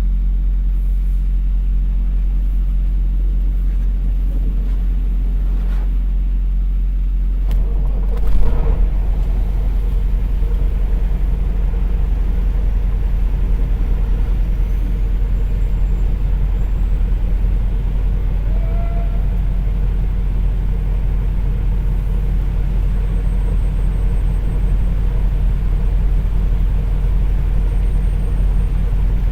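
Cummins ISX diesel engine of a Peterbilt truck idling steadily with a low rumble. About eight seconds in there is a sudden loud burst, after which a steady hiss joins the engine.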